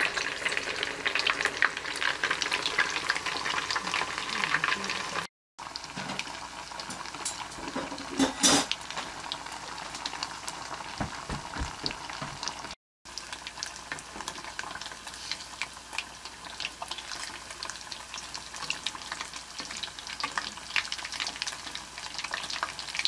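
Satsuma-age fish cakes deep-frying in hot oil in a pan, a dense, steady crackling sizzle. There is one short louder burst about eight seconds in, and the sound breaks off for a moment twice.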